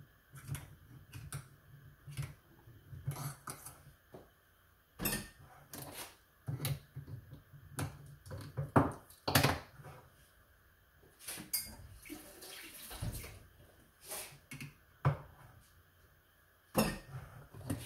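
Handheld can opener cutting round a metal tin of milk: irregular clicks and clanks of the cutter on the rim, with a short scraping stretch about twelve seconds in. The opener is being difficult to work.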